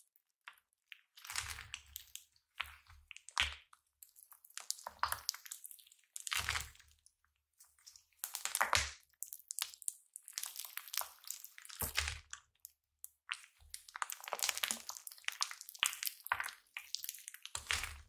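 White slime packed with blue foam beads being squeezed, pressed and stretched by hand close to the microphone. It gives bursts of crunching and crackling, one every second or two, with short pauses between and a soft low thump under some of the squeezes.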